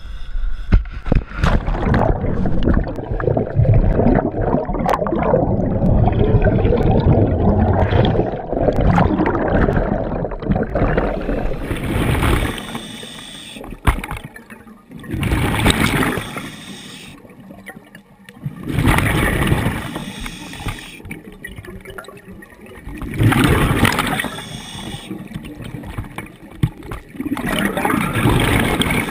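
Wind and water noise with scattered knocks from gear on a boat deck, then a scuba diver's regulator breathing underwater: exhaled bubbles gurgling in bursts every three to four seconds, with quieter gaps between breaths.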